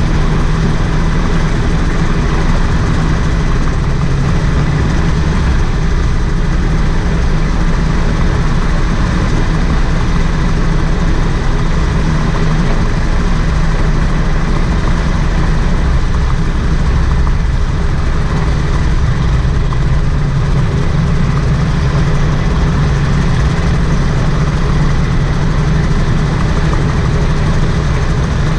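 Rotax 582 two-cylinder two-stroke engine of a float-equipped gyroplane running steadily at a constant setting as the craft taxis on the water.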